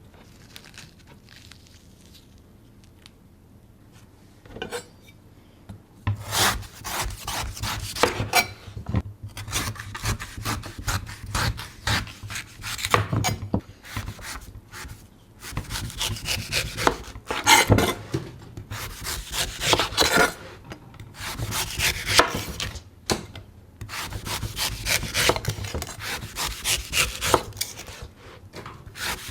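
A knife cutting and shaving a coconut: runs of quick scraping, rubbing strokes through the husk, broken by short pauses. Before they start there is a quiet stretch with a single knock, and the strokes begin about six seconds in.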